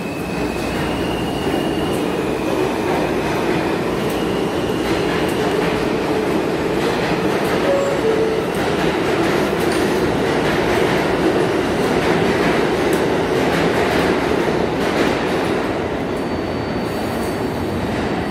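New York City subway train running past on the express track without stopping: a steady rumble of steel wheels on the rails that builds toward the middle and eases near the end, with a faint wheel squeal early on.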